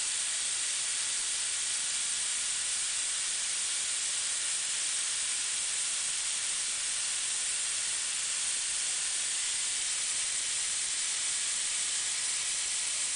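Steady hiss of a grinding wheel cutting a grooved rubber roller on a CNC profile grinder.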